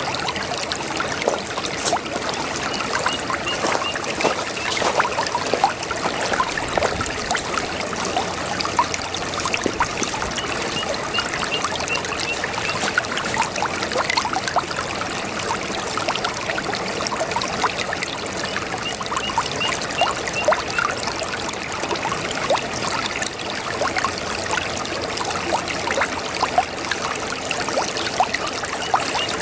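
Brook babbling and trickling over stones: a steady rush of water full of small gurgles and splashes. A faint run of quick, high chirps comes back every several seconds.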